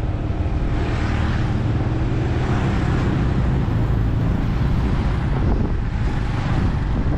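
Motorbike riding noise: the bike's engine running steadily at road speed, with wind rushing over the microphone. Oncoming motorbikes pass close by, the noise swelling somewhat in the first few seconds.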